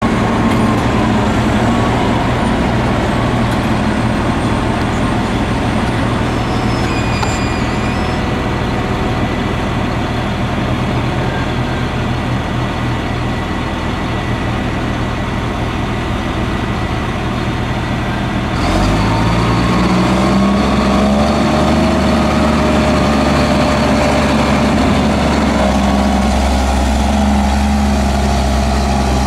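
Large farm tractor diesel engines running steadily, a Claas Xerion 3800 among them. About two-thirds of the way in the sound suddenly gets louder and one engine's note rises, then holds steady.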